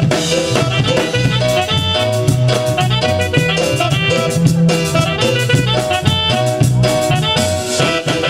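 Live band playing an upbeat Latin dance tune on electric bass, electronic keyboards and drum kit, with a steady beat and a moving bass line.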